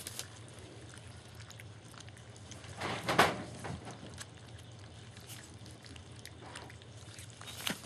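German shepherd puppies eating soft food from a metal pan on newspaper: faint chewing and smacking with small clicks over a low steady hum, and one brief louder noise about three seconds in.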